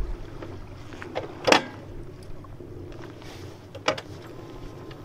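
Knocks and clunks from handling a loaded touring motorcycle and its luggage cases: two sharp knocks, one about a second and a half in and a second near four seconds. A faint steady tone begins just after the second knock.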